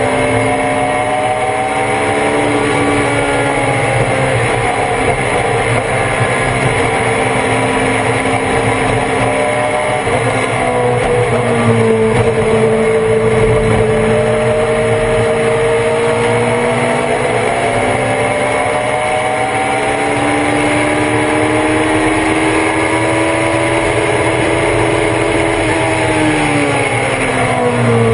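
In-car sound of a Thunder Roadster race car's engine running hard at high revs under racing load. The pitch climbs slowly through long pulls, then drops sharply about a third of the way in and again near the end as the driver lifts off for corners.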